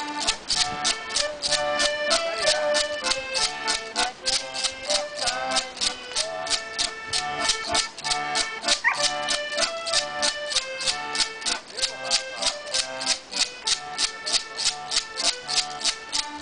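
Background music with a fast, even beat of shaker-like strikes under held accordion-like melody notes.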